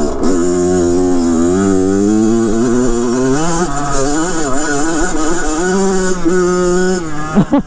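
2007 Kawasaki KX100's 99cc liquid-cooled two-stroke single-cylinder engine running while being ridden, its revs rising and falling over and over as the throttle is worked. The revs drop sharply about seven seconds in.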